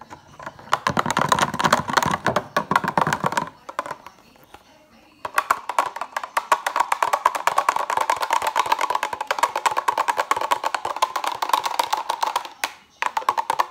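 Metal wire whisk clinking rapidly against the sides of a glass measuring cup as a thin liquid mixture is whisked. It comes in two bouts, a short one, a pause of about two seconds, then a longer one that stops shortly before the end.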